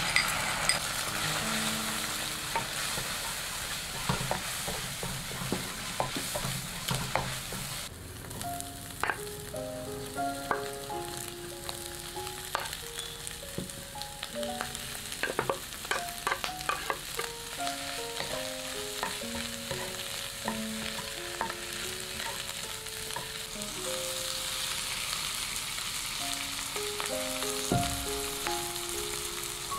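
Food sizzling in hot oil in a nonstick wok. Beaten egg is poured in, and then sliced meatballs, sausage and bok choy are stir-fried, with a wooden spatula clicking and scraping against the pan.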